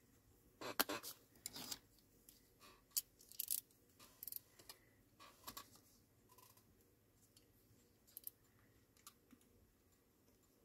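X-Acto craft knife cutting paper against a metal ruler on a cutting mat, trimming an uneven edge: a series of short, sharp, scratchy strokes at irregular intervals, more of them in the first half and only a few near the end.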